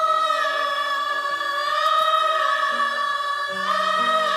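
Background music from a Hindi song: a singer holds long, slightly wavering notes over a soft accompaniment.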